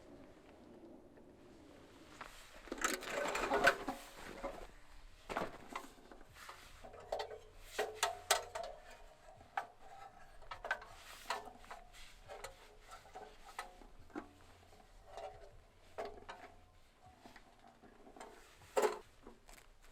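Objects being handled close by: irregular clicks and knocks, with a louder stretch of rustling about three seconds in.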